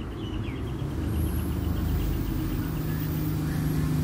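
Low, steady rumble of a motor vehicle's engine, with a steady low hum coming in about halfway through. A quick run of faint high chirps sounds over the first second or so.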